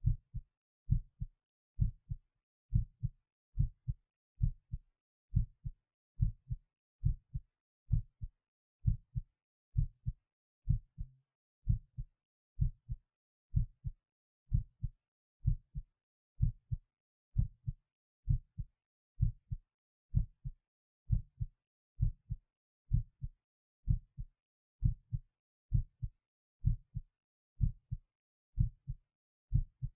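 A human heartbeat recorded at the apex of the chest, beating steadily at a little over one beat a second. Each beat is a lub-dub pair, the first sound louder than the second.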